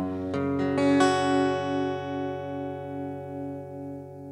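Guitar played through a Taffware V8 live sound card: a few quick plucked notes, then a chord about a second in that rings on and slowly fades.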